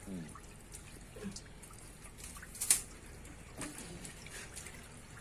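Hands splashing and sloshing in shallow water on a concrete floor while grabbing small fish, with water trickling and dripping; one sharp splash stands out about two and a half seconds in.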